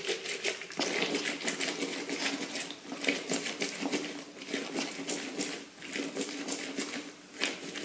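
Lemon half pressed and twisted on a plastic hand citrus reamer: a quick, uneven run of short scraping clicks as the fruit grinds on the ridges.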